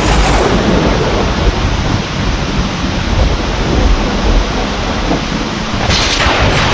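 Heavy rain with thunder rumbling low and continuously, and a sharper crackle of thunder about six seconds in.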